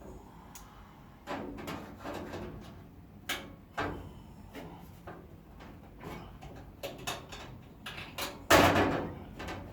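Scattered knocks and clatter of metal parts and workshop tools being handled, with the loudest, longest clatter about three-quarters of the way in.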